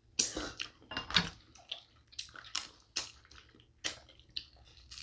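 Close-up eating of snow crab legs in spicy seafood-boil sauce: wet chewing and sucking at the meat, with lip smacks and sharp shell clicks coming irregularly, several a second.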